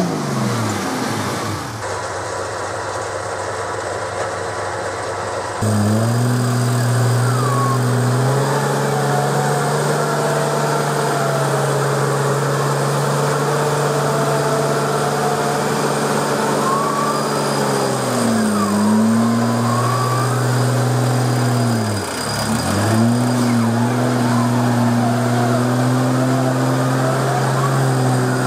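Toyota 80 Series Land Cruiser being winched out of a deep mud rut: a steady mechanical drone of engine and winch whose pitch sags sharply and recovers twice in the second half, as under heavy load.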